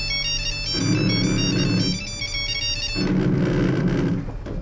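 Mobile phone ringing: a melodic ringtone of short high notes, with a low buzz pulsing on and off about once a second. The tune stops about three seconds in, and the buzz sounds once more before the call is answered.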